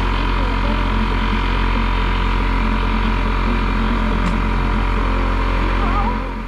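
Steady engine or motor drone with a constant hum, running evenly without change.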